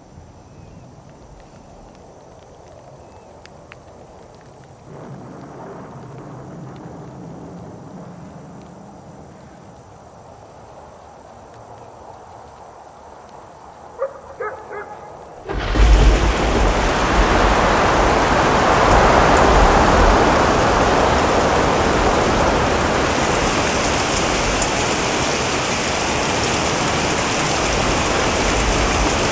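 Heavy rain and thunder: after a quiet, low background, a downpour comes in suddenly about halfway through with a deep rumble of thunder, then pours steadily.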